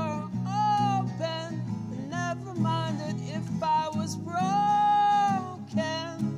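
Background music: strummed acoustic guitar under a melody line, which holds one long note a little past halfway.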